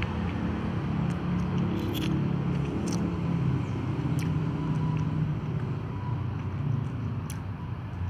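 Cats eating from plastic tubs, with a few sharp clicking bites over a steady low rumble.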